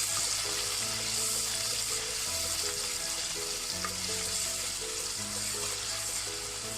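Ginger, garlic and green chilies sizzling steadily in hot coconut oil in a clay pot as they sauté, with light background music.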